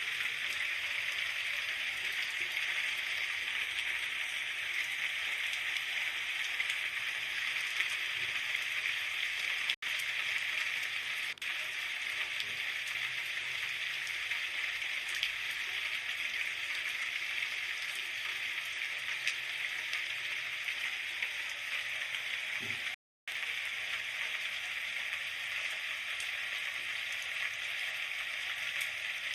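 Steady rain, an even hiss of falling drops. It cuts out for an instant about ten seconds in and again, slightly longer, about two-thirds of the way through.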